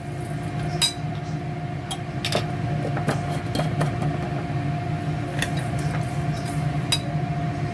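A steady mechanical hum, like a kitchen appliance motor running, with a few light clinks of a spoon against a stainless steel bowl as toasted sesame seeds are sprinkled into the salad and stirred in.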